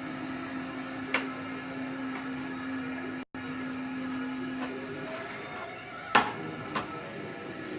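A chef's knife cutting raw boneless chicken breast into strips, with a few knocks of the blade on the cutting board, the loudest about six seconds in. A steady low hum runs underneath and stops about five seconds in.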